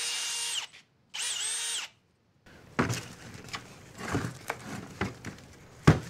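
Drill-driven paddle mixer stirring wet soil mix in a plastic bucket: a steady whine that stops, then a short second run that winds down in pitch. After that come knocks and thuds as the mix is dumped from the upturned bucket onto a plastic tray, with the loudest thump near the end.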